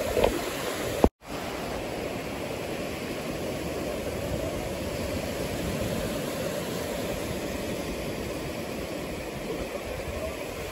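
Sea surf washing onto a sandy beach, a steady, even rush of water. About a second in, a sharp click and a split-second gap break the sound.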